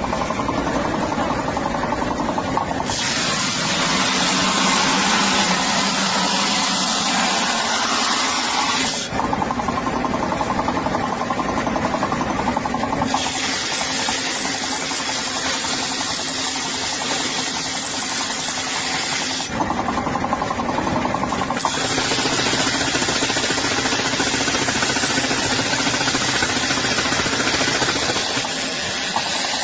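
Used-tyre cutting machine running with a steady motor hum. Three long stretches of loud hissing noise come and go over it.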